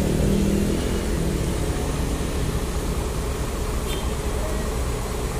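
A coach's diesel engine idling with a steady low rumble. A motorcycle passes and fades out in the first second or so.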